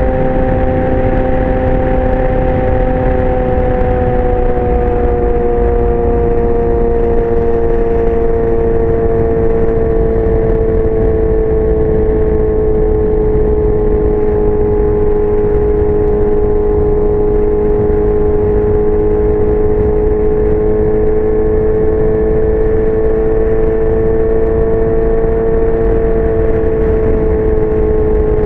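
2019 Yamaha R6's inline-four engine running through a LeoVince aftermarket exhaust, holding a steady note. The pitch eases slightly lower about four seconds in, then rises and falls a little near the end.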